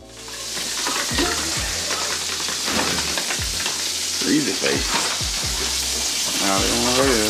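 Food frying in a pan on the stove, a steady sizzle that fades in over the first second.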